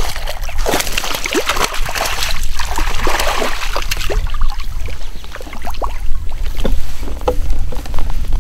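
A hooked largemouth bass thrashing and splashing at the water's surface for the first few seconds, followed by scattered sharp clicks and knocks.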